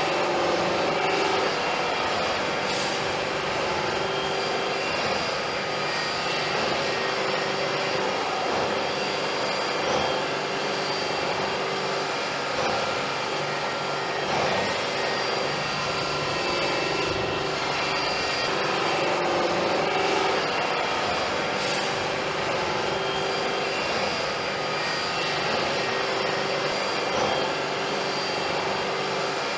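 LeTourneau L-1850 wheel loader working, a steady heavy machine drone with a faint high whine that rises and falls a few times.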